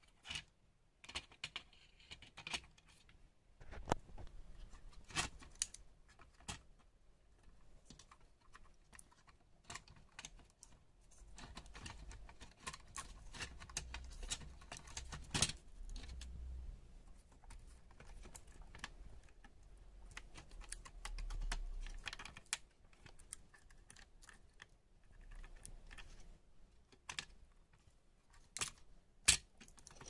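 Irregular small clicks, taps and scrapes of plastic and circuit board being handled as a laptop motherboard is fitted into the notebook's plastic base, with a few sharper clicks about halfway through and near the end.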